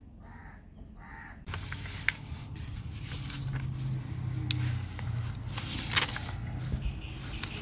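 A sheet of paper being folded and creased by hand, rustling, with a few sharp crackles as it is pressed flat, over a low steady hum.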